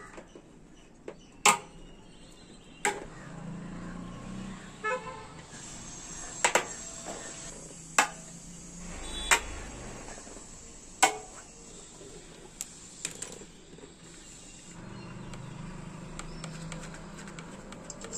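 Sharp clicks and snaps, about eight spread out, as parts are pressed and clipped into place on a TVS 50 moped during assembly. A short horn toot sounds about five seconds in.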